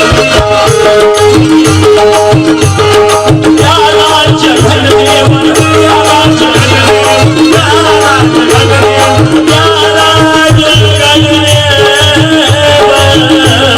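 Instrumental passage of a live qawwali-style band: a held melody line stepping from note to note over steady hand-drum beats and a shaker, with no singing.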